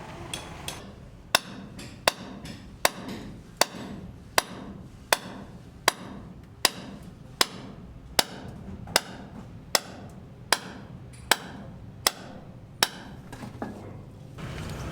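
Hammer blows in a steady rhythm, a little more than one a second, about sixteen sharp strikes with lighter taps at the start and near the end.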